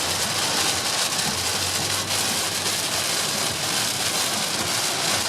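Heavy rain hitting a moving car's roof and windscreen, a steady hiss over the low hum of tyres and engine, heard from inside the car.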